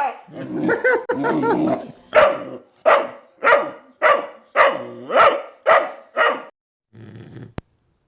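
Vizsla puppy barking: one drawn-out, wavering bark first, then a run of eight short, evenly spaced barks a little under two a second, stopping about six and a half seconds in.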